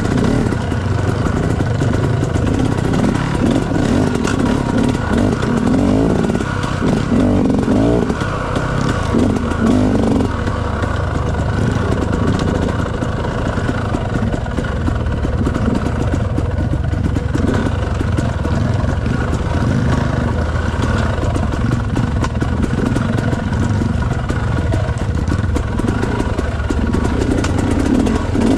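Dirt bike engine running on a trail ride, its note rising and falling as the throttle is worked, with louder revs a few seconds in and again near the end.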